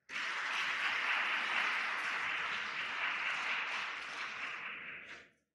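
Audience applauding, starting suddenly and cutting off after about five seconds.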